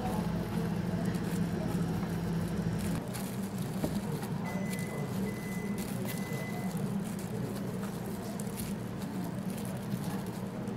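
Steady hum of cafe equipment, with a deep rumble that stops about three seconds in. A high electronic beep sounds three times in a row midway, with light clicks of cup and hand handling throughout.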